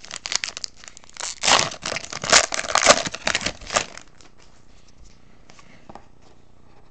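Foil wrapper of an Upper Deck Artifacts hockey card pack crinkling and tearing as the pack is opened, a dense run of rustles for about four seconds. After that it drops to a few faint ticks of cards being handled.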